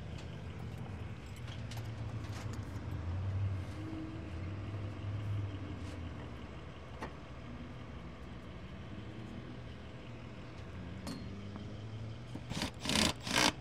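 A vehicle engine idling steadily with a low hum, and light clinks of metal now and then. Near the end come three or four loud, short bursts of noise.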